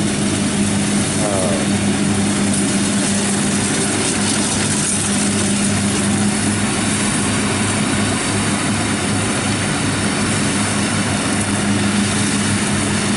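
Kubota rice combine harvester running steadily under load: a constant engine hum with dense mechanical clatter and hiss from the machine.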